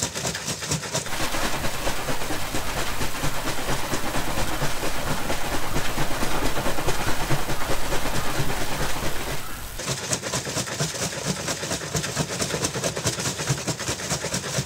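Plastic bottle of linseed oil and water shaken hard and fast by hand, the liquid sloshing and rattling in a quick steady rhythm as it is whipped into a milky emulsion. The shaking is fullest from about a second in until near ten seconds, then goes on a little lighter.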